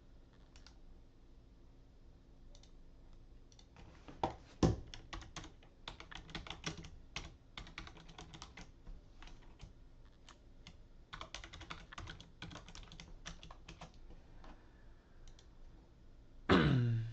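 Typing on a computer keyboard: scattered key clicks at first, then runs of quick keystrokes with a couple of louder knocks about four seconds in. A brief loud vocal sound comes near the end.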